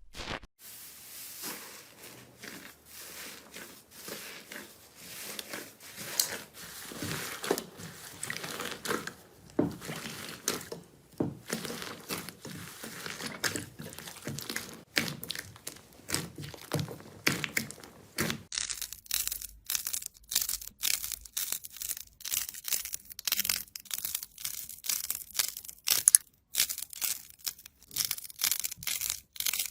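Slime being squished, pressed and pulled by hand, giving a dense, irregular stream of crackling and crunching clicks. About two-thirds of the way in, the sound turns thinner and crisper.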